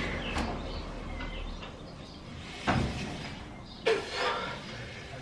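Home-gym cable pulley machine knocking twice, with two sharp clanks a little over a second apart, over a low steady background.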